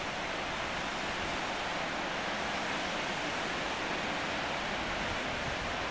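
Steady rush of water from the Marmore Falls, a tall man-made cascade, its flow newly let through at the opening of the falls.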